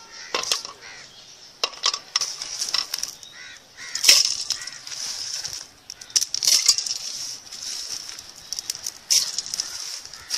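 Wood fire under a cooking pot crackling and hissing in repeated bursts, with sharp pops; the strongest bursts come about four and six and a half seconds in.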